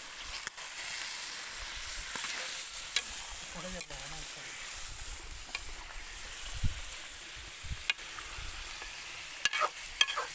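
Food sizzling as it fries in a pan while being stirred, with a few sharp clicks near the end.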